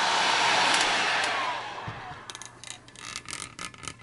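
Electric heat gun blowing hot air onto a nylon line to soften it, then switched off about one and a half seconds in, its fan winding down with a falling tone. Light clicks and rattles follow as the line and fitting are handled in a bench vise.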